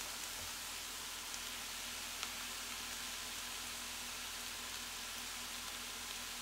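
Faint, steady sizzle of a hot skillet of stir-fried chicken and vegetables after the heat is turned off, with a couple of light ticks from a spoon on the pans.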